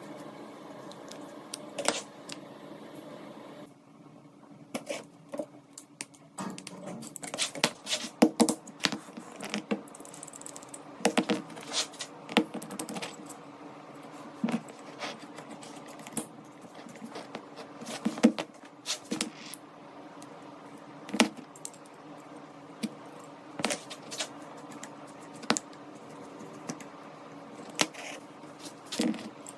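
Irregular sharp clicks and clinks of small steel revolver parts being handled and fitted together, over a faint steady hum.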